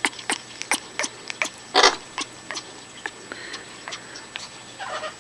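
African grey parrot making its odd noise: a run of short, sharp clicks, about two or three a second at uneven spacing, with one louder, harsher burst about two seconds in and a softer rasp near the end.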